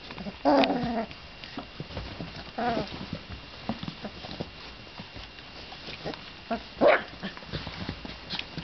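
Young puppies vocalising as they tussle: short high whines and yelps, one about half a second in, another near three seconds and a sharp one near seven seconds.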